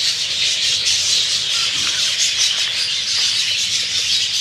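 Steady background chorus of birds chirping, a dense unbroken chatter.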